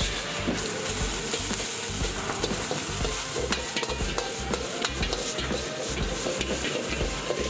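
Vegetables and rice stir-frying in a wok over a high gas flame: steady sizzling, with metal tools clattering and scraping against the wok.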